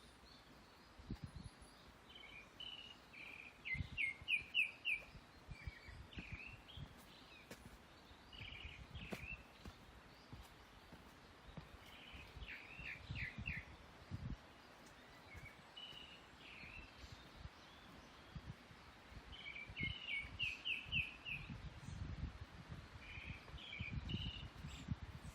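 Forest songbirds singing short phrases of four or five quick chirps, repeated every several seconds over a faint steady hiss, with irregular soft low thumps of footsteps on a forest trail.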